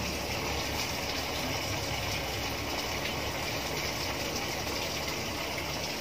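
Water rushing steadily into the tub of a Samsung Wobble top-load washing machine as it fills at the start of a cycle, over a low hum from the machine.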